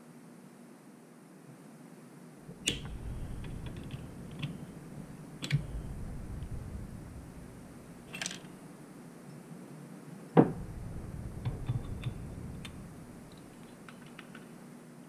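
Small metal clicks and knocks as a Harley-Davidson CV carburetor body and pliers are handled and worked on, over a low rumble of handling; the sharpest knock comes about ten seconds in.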